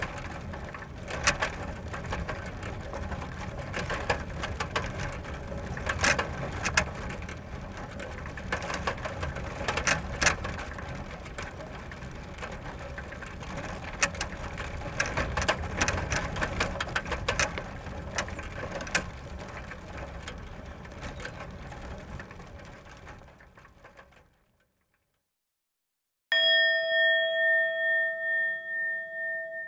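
Bicycle being ridden: a steady rattle of chain and moving parts with frequent sharp clicks and clanks, fading out at about 24 seconds. After a short silence, a struck bell-like tone rings out, wavering as it dies away.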